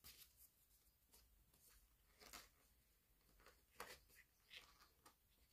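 Near silence with a handful of faint paper crackles and ticks: stickers being peeled from their backing sheet and handled with tweezers.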